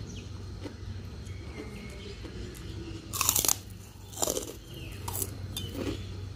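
Close-up crunching and chewing of a crispy white cracker being bitten. The loudest crunch comes about three seconds in, followed by several smaller crunches.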